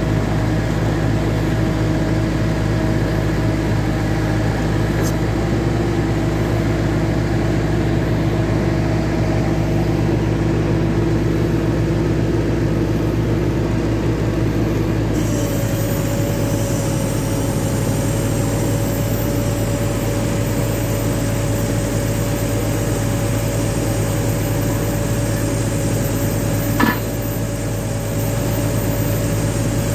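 ROC D40 rock drill rig running steadily while its rock drill bores into the rock face: a continuous loud mechanical din over an engine hum. About halfway through the tone shifts and a high hiss joins in.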